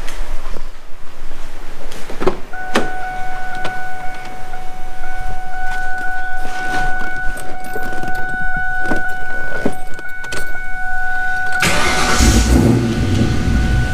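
A steady warning tone and some knocks from the car's cabin, then about twelve seconds in the 1999 Mustang GT's 4.6-litre V8 with aftermarket camshafts cranks, fires and settles into a loud idle through an X-pipe and Magnaflow mufflers. This is its first start with the full exhaust, on an engine still awaiting a tune for the new cams.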